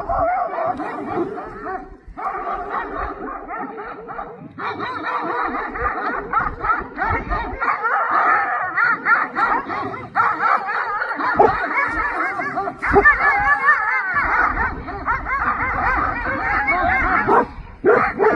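A pack of large livestock guardian dogs barking together in a dense, continuous, overlapping chorus, with short breaks about two and four and a half seconds in, thinning out near the end.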